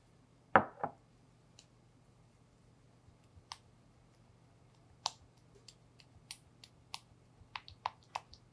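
A black spoon stirring soaked gelatin into a mango mixture in a glass bowl, ticking against the glass in irregular light clicks that come more often in the second half. Near the start, two louder knocks close together are the loudest sounds.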